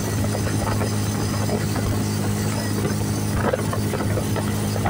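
Engine and road noise of a moving vehicle: a steady low hum.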